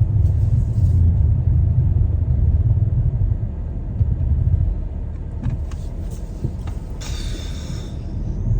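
Low, steady rumble of a car heard from inside the cabin, with a few light clicks and a short hiss about seven seconds in.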